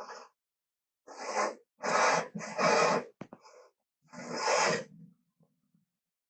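Made-up Carnotaurus dinosaur sound effects: four raspy, breathy creature calls in a row with short gaps and a sharp click after the third, the last one trailing off into a low rumble.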